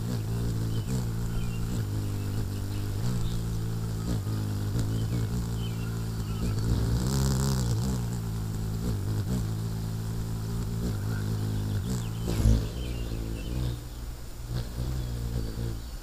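Hummingbird's wings humming as it hovers close in at a nectar feeder, a steady low buzz that wavers in pitch as the bird shifts position and stops shortly before the end as it leaves. One brief knock about twelve seconds in.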